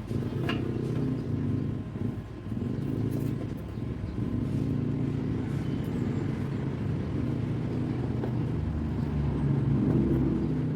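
A motor running steadily with a low rumbling hum.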